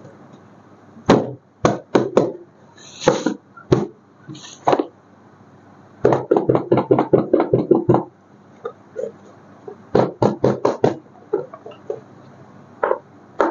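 Sharp clicks and knocks in irregular groups, with a quick run of about eight a second in the middle and a few short hissy rustles.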